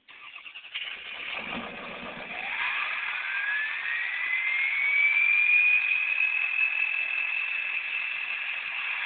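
Ford 6.0 Powerstroke V8 turbo diesel with a straight-pipe exhaust starting suddenly, then idling as its turbo whistle rises in pitch over about four seconds and settles into a steady high whine.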